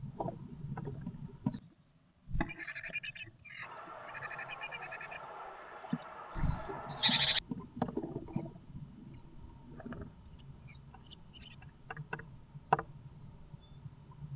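Great tit nestlings, fully feathered and about to fledge, calling inside a wooden nest box. A dense burst of begging calls runs through the middle and ends on one loud high note. Scratching and short knocks follow as the chicks shuffle and flap.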